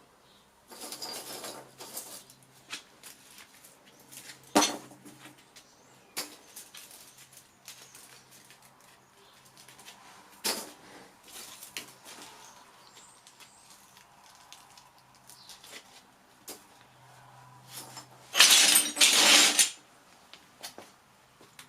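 Metal pieces clinking and knocking as they are handled, with scattered single knocks and a louder rattling, scraping stretch near the end.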